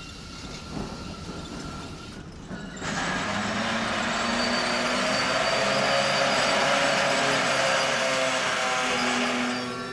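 Freight train of container wagons braking as it rolls into a station siding: a loud mix of brake squeal and hiss with several steady squealing tones sets in about three seconds in and cuts off sharply near the end.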